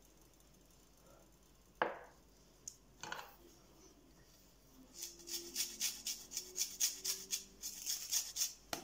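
A lime being zested on a flat metal hand grater: fast rasping strokes, about four a second, in the second half. Before that come a few knocks, one sharp and two lighter, as a small dish and the grater are put down and taken up.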